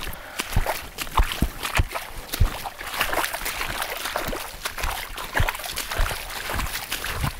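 Hiking boots splashing and sloshing through shallow muddy water on a flooded trail, a splash with each step at a brisk walking pace of about two steps a second.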